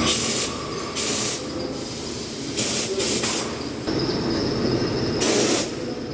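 Hurco CNC machine running with a steady hum, broken by five short, loud hisses, each about half a second long, two of them back to back near the middle.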